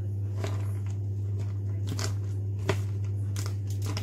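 Metal spoon scraping and tapping shredded chicken out of a plastic tub into a glass baking dish: scattered clicks and scrapes, the sharpest about two and a half seconds in, over a steady low hum.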